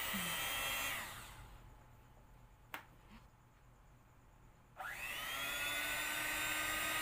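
Scarlett electric hand mixer motor running with its beaters fitted, a steady whine. About a second in it is switched off and winds down to quiet, with a single click in the pause. Near five seconds it is switched back on, spins up quickly and runs steadily again.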